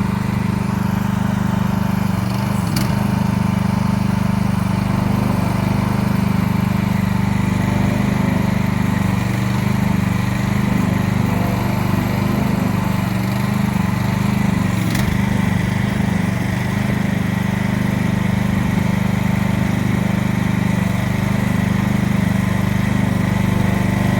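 Small engine of a Chinese mini excavator running at a steady speed with an even, unchanging hum.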